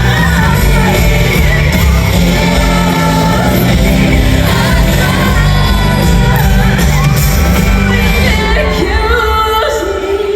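Live pop concert: a band playing loud with a singer and the crowd singing and shouting along. The band's bass drops out about nine seconds in, leaving the voices.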